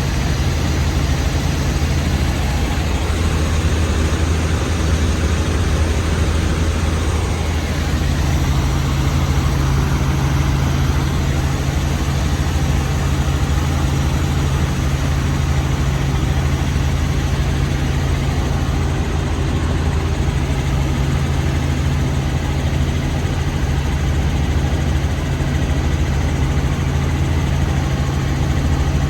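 Helicopter engine and rotor running steadily, heard on board as a constant low drone.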